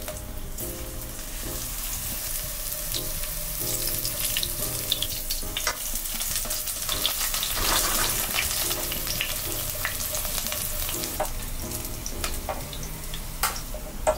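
Tempura-battered green beans shallow-frying in oil in a nonstick pan: a steady sizzle full of small popping crackles, busiest around the middle. A couple of sharp clicks near the end.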